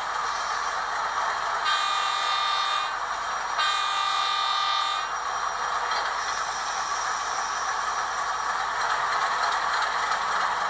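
HO scale model diesel locomotive's DCC sound decoder, through the model's small speaker, playing an Alco diesel engine running steadily with two horn blasts, about two and three seconds in, each a little over a second long.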